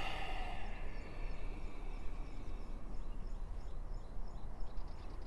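Open-air ambience: a steady low rush of outdoor noise with faint small-bird chirps scattered through it.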